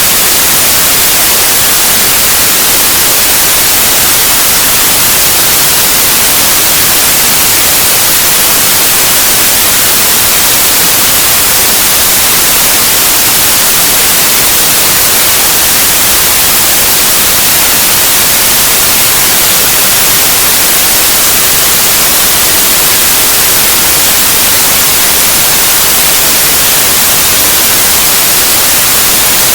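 Steady, loud white noise: an even, unchanging hiss, strongest in the highs.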